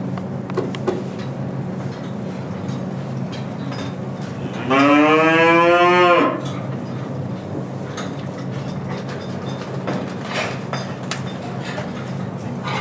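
A cow mooing once, one loud call of about a second and a half, starting about five seconds in and rising slightly in pitch at first. A steady low hum runs underneath.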